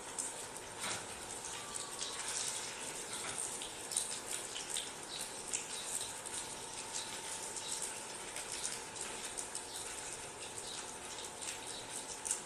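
Tikoy (sticky rice cake) cooking in a pan: a steady soft sizzle dotted with small crackles.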